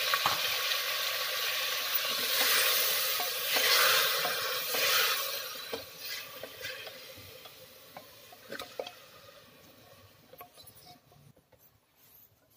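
Minced mutton sizzling in hot oil in a stainless steel pressure cooker while it is stirred, the spatula clicking against the pot now and then. The sizzle is strong for the first five or six seconds, then fades away to faint by the end.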